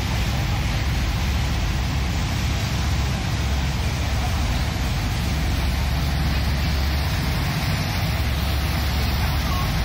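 Thames Clipper river catamaran under way, heard from inside the passenger cabin: a steady low engine drone under a constant rushing noise.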